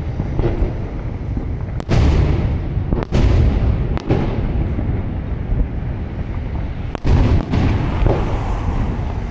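Aerial firework shells bursting with deep booms, sharp reports about two and three seconds in and again about seven and eight seconds in, with a low rumble carrying on between them.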